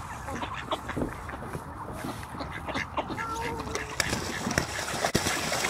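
Mallard ducks quacking in short, scattered calls. A rush of splashing water grows louder over the last couple of seconds.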